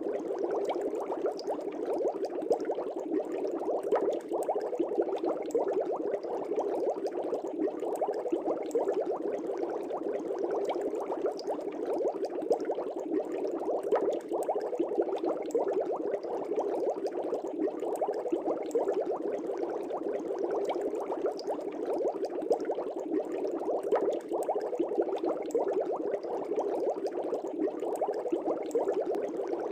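Aquarium air bubbles rising and bubbling at the water surface in a steady, dense stream of small pops.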